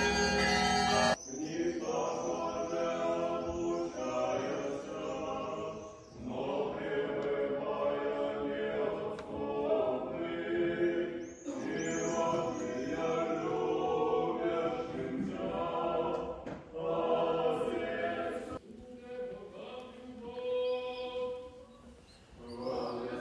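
Monastery bells ringing, cut off about a second in. Then the monks' choir chants Orthodox liturgical chant in phrases with short pauses.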